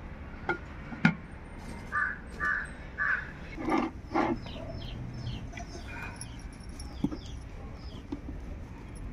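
A crow cawing several times in quick succession, about half a second apart, two to four seconds in. A few sharp knocks come before and after the caws.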